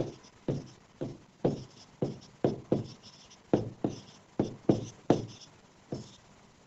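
Pen writing on a smart board: a run of about a dozen short, sharp strokes, roughly two a second, that stop about six seconds in.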